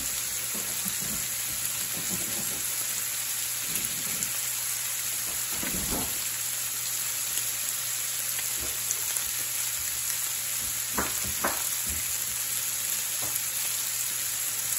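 Jumbo shrimp and chopped garlic sizzling steadily in olive oil in a frying pan, with a few faint ticks.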